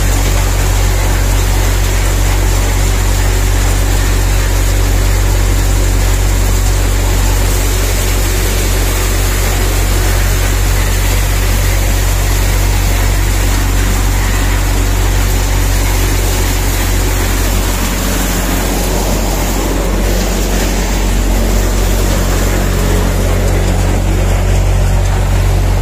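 Maize thresher running steadily under load: a loud, even machine drone with a deep constant hum beneath the rush of threshing.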